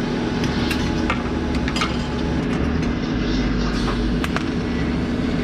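Electric arc welding: a steady crackling hiss over a low hum, with irregular sharp pops.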